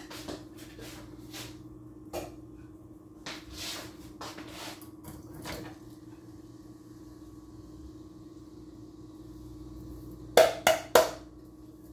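Kitchen handling at the stove: scattered light clicks and scrapes of a can and utensils, then three sharp knocks in quick succession near the end, over a steady low hum.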